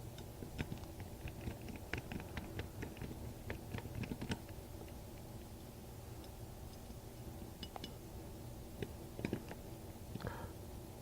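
Faint clicks and small ticks of a Phillips screwdriver turning the two screws that hold a clamp latch onto a sliding glass door handle set, quick and dense for the first four seconds or so, then scattered, with a few more near the end, over a steady low hum.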